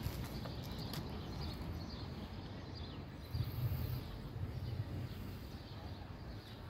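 Wind buffeting the microphone outdoors, a gusty low rumble that swells about three and a half seconds in.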